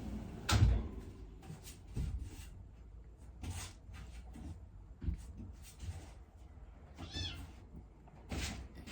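A kitten mews once, a short high-pitched arching call about seven seconds in, among scattered knocks and clicks, with a loud thump just after the start.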